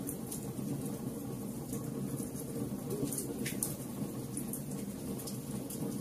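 Wood fire burning in a fireplace: a steady low rush of flames with scattered crackles and pops from the logs, and one sharper pop about three and a half seconds in.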